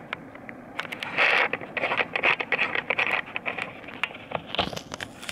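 Crunching, scraping and clicking close to the microphone, like footsteps and handling on gravel ballast, loudest from about one to three seconds in.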